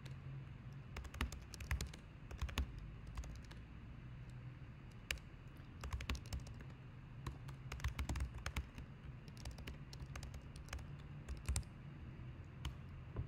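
Typing on a computer keyboard: quick keystrokes in irregular bursts with short pauses between, over a low steady hum.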